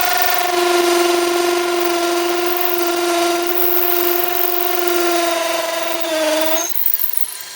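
Metabo HPT DV18DBFL2 18-volt cordless hammer drill hammer-drilling into brick with a 1/4-inch masonry bit: a steady high-pitched buzzing whine that sags slightly in pitch and stops near the end, followed by a few brief clicks.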